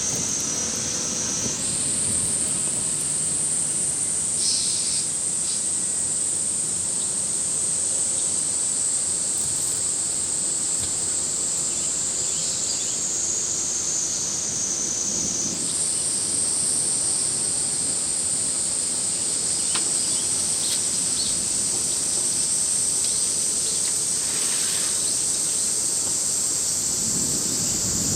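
High-pitched insect chorus, a steady shrill drone that jumps up in pitch twice and sags slowly between the jumps.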